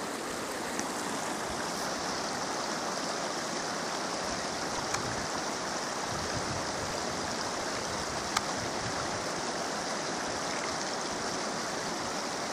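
Steady rushing of a mountain stream, with a few faint ticks.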